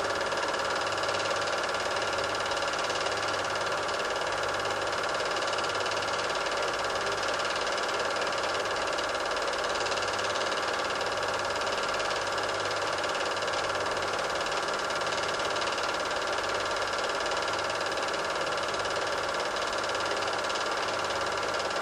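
Super 8 film projector running: a steady mechanical whirr from the motor and film-transport mechanism, picked up while the silent film was being transferred.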